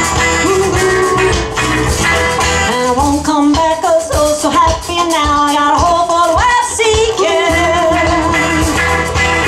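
Live rock band playing an instrumental passage on electric guitars, bass, drum kit and hand percussion, with a melodic lead line that bends and wavers in pitch through the middle.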